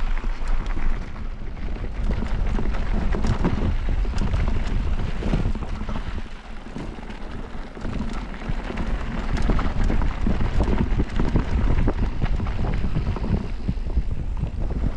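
Mountain bike descending a rough bike-park trail at speed: tyres running over dirt and rock with constant clattering and knocks from the bike over bumps, and wind buffeting the microphone. The noise eases briefly about six seconds in.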